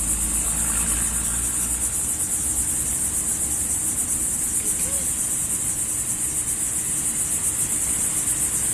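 Steady high-pitched insect chorus with a fast, even pulse, running without a break. A low rumble fades out about a second and a half in.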